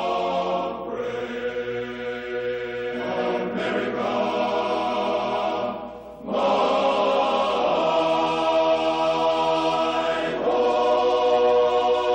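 A choir singing slow, long-held chords that change every few seconds, with a brief drop in level about six seconds in.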